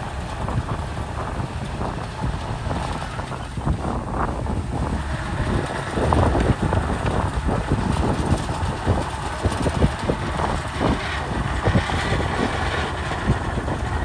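Komatsu D61PX bulldozer's diesel engine running as it pushes sand, with irregular clanking from the steel tracks, getting louder about six seconds in. Wind buffets the microphone.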